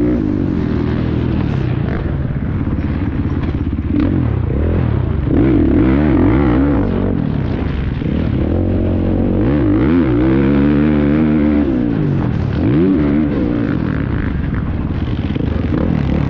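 Two-stroke 300 motocross bike engine heard up close as it is ridden hard, revving up and backing off again and again, its pitch climbing and dropping every couple of seconds through the turns and jumps.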